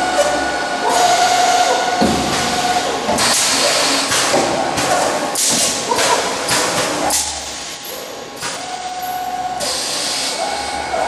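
CNC beam drilling line running, with a steady whine and repeated hissing bursts coming and going, and a few sharp knocks.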